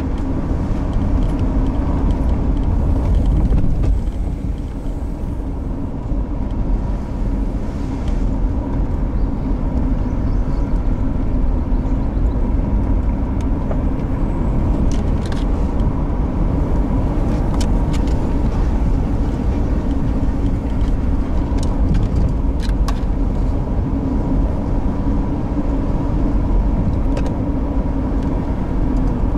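Car driving along the road: steady engine and road noise, a low rumble with a constant hum.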